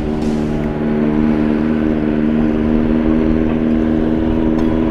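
A vehicle engine running steadily while driving along a road: a constant engine hum over low road rumble.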